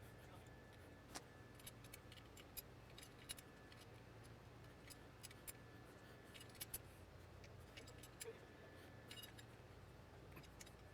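Faint, irregular metal clicks and ticks from a tool working the retaining nut of a Bafang BBSHD mid-drive motor in a bicycle's bottom bracket as it is tightened down, over a low room hum.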